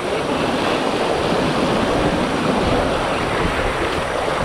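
Fast river water rushing and splashing around a kayak, a steady loud rush, with wind buffeting the microphone.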